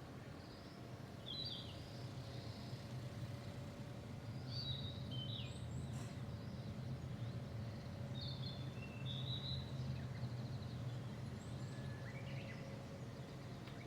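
Birds calling in short chirps, a few phrases every few seconds, over a steady low background drone.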